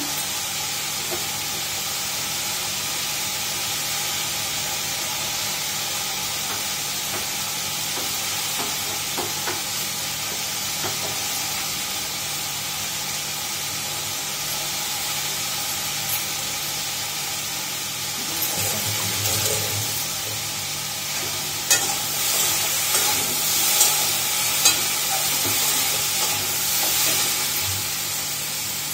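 Steady sizzling of food frying in a steel kadai on a gas stove, with clinks and clatter of metal utensils starting about two-thirds of the way through.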